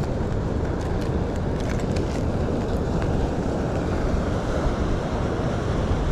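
Steady wind buffeting the microphone, with a few faint ticks in the first couple of seconds.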